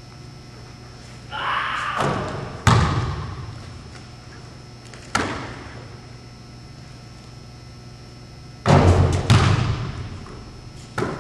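A basketball bouncing on the gym floor, each thud echoing through the hall: single bounces a few seconds apart, then a quick run of bounces near the end. There is a brief hiss about a second and a half in.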